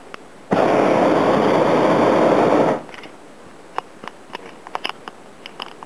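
Hot-air balloon propane burner firing in one loud blast of a little over two seconds, starting and cutting off abruptly. Several short, sharp clicks follow.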